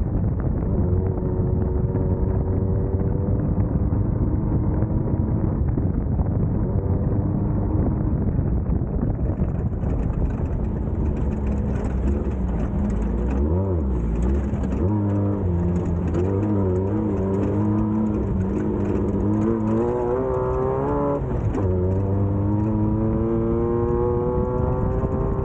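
Class 1600 off-road race car's air-cooled VW flat-four engine running hard, its revs rising and falling repeatedly with throttle and gear changes over a heavy low rumble. A hissy noise joins about ten seconds in.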